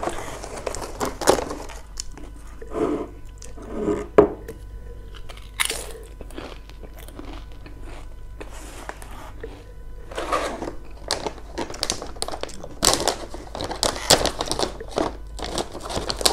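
Crisp potato-stick snacks being bitten and chewed close to a mini microphone: a run of sharp crunches, thickest in the second half.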